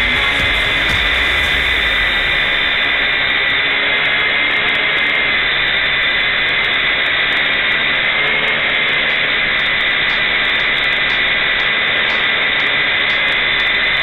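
E-flite MQX quadcopter's motors and propellers whining steadily at close range while it hovers, with a high, slightly wavering tone over a rushing hiss.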